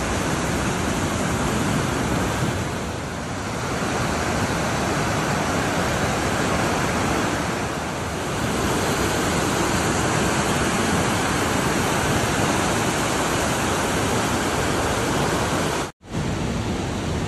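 Swollen, muddy mountain river in spate rushing over rocks, a loud steady rush of water; the river is at peak flow. The sound drops out for an instant near the end, then resumes.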